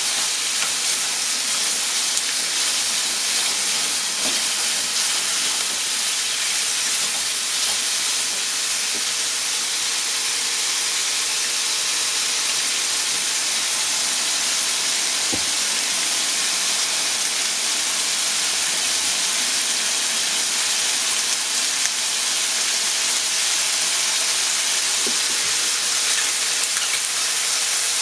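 Chicken pieces sizzling in oil in a frying pan, a steady hiss, with a few faint knocks.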